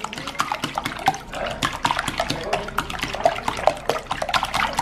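Four raw eggs being beaten briskly with a silicone whisk in a ceramic bowl: a rapid, irregular run of wet slapping and sloshing strokes.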